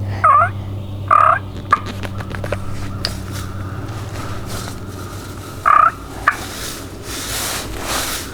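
Wild turkey gobbling close by, three loud, short gobbles: two in the first second and a half and one near the end.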